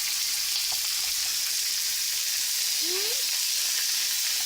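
Moose steak frying on a bed of vegetables in a pan, sizzling with a steady high hiss.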